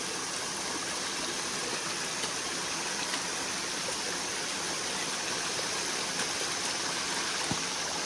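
Water of a small rocky stream cascade running steadily over the rocks.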